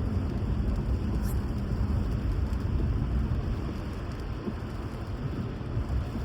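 Steady rain noise under a heavy, unbroken low rumble.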